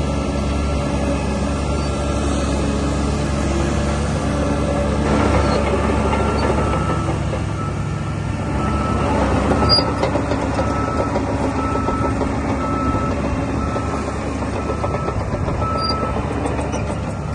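DH17 C2 LGP bulldozer's diesel engine running steadily under work. From about five seconds in, a reversing alarm beeps roughly once a second.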